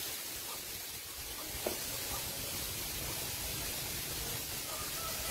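Steady outdoor background hiss, with one faint short click a little under two seconds in.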